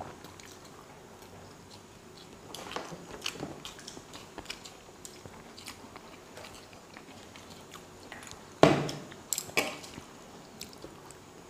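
People eating halved boiled eggs: quiet chewing with small scattered clicks and taps of fingers on plates. A louder knock comes about eight and a half seconds in, followed by a couple of sharp taps.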